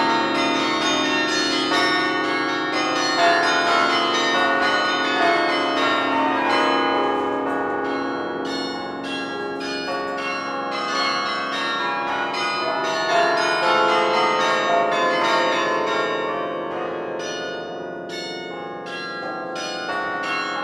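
Carillon bells played from the baton keyboard in a fast, dense passage: many overlapping struck notes, each ringing on, with the stream thinning briefly twice.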